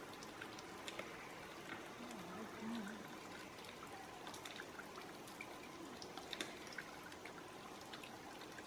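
Faint background ambience with scattered light clicks and a brief, distant murmur of a voice about two seconds in.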